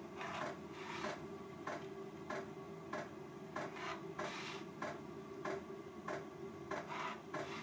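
Pencil scratching marks onto a plywood board along a square, in short irregular strokes several times a second, over a steady low hum.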